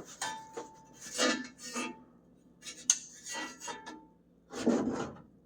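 Parts scraping and rubbing against each other as they are worked loose, with a few short squeaks and a sharp click about three seconds in.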